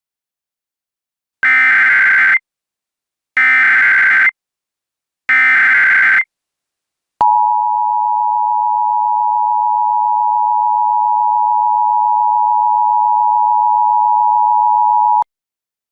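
Emergency Alert System SAME header, three bursts of warbling digital data tones about a second each, followed by the EAS two-tone attention signal: a steady dual tone held for about eight seconds that cuts off suddenly. Together they announce that an emergency alert message is about to be broadcast.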